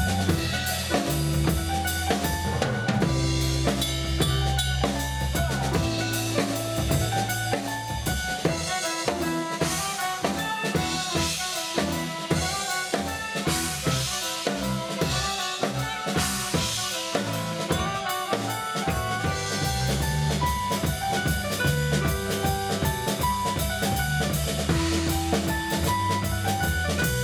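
Live band playing a Breton ridée dance tune: drum kit with snare, rimshots and bass drum, over electric bass, with clarinet and soprano saxophone carrying the melody.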